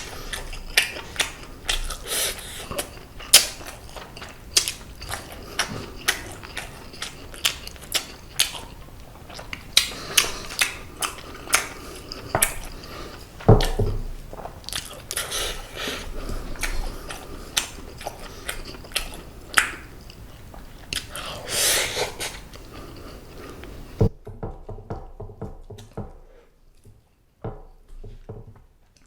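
Close-miked chewing of seasoned, semi-dried braised pollock (kodari): wet mouth clicks and lip smacks at an irregular pace, with one heavier knock partway through.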